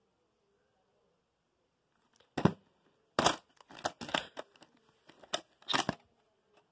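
Plastic VHS clamshell case being opened and the cassette lifted out: a string of sharp plastic clicks and rattles starting about two seconds in, the loudest one first.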